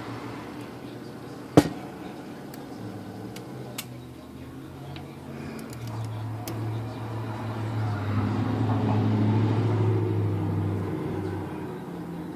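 Small metal parts of a typewriter's ribbon reverse mechanism being worked by hand: one sharp snap about a second and a half in, then a few light clicks. A low hum swells and fades in the second half.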